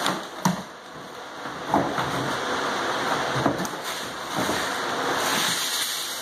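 A large sheet of stapled-down particle board underlayment being pried and peeled up off the subfloor, giving several sharp cracks as the staples pull free, over a steady hiss.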